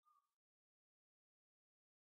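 Near silence: a pause between phrases of canary song.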